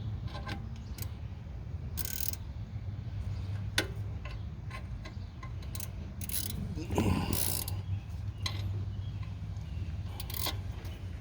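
Hand ratchet wrench clicking in short runs, with metal tool clinks, as the 13 mm bolts of a rear disc-brake caliper are backed out.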